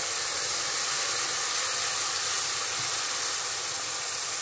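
Onion, garlic and spice sauce base with vinegar sizzling in hot oil in a pot as it is stirred: a steady hiss.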